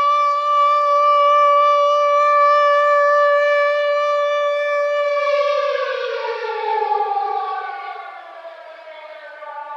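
Air raid siren sounding a steady, held tone, then winding down in pitch and fading about five seconds in, and beginning to rise again at the very end.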